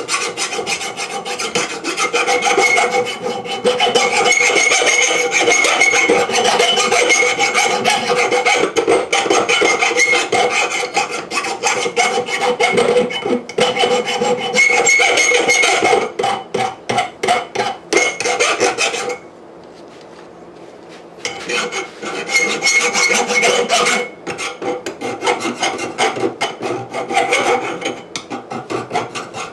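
Power grinder grinding the edges of a steel anvil: a continuous rough, abrasive grinding noise with a steady motor whine underneath. It breaks off for about two seconds past the middle, then resumes.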